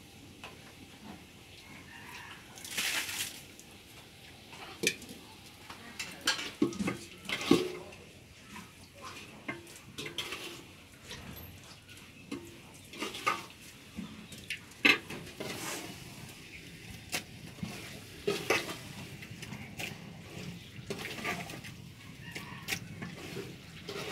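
A spoon and a wooden spatula knocking and scraping in a metal cooking pot as spices are added and meat is stirred: irregular clinks and knocks, with a short hissing rush about three seconds in.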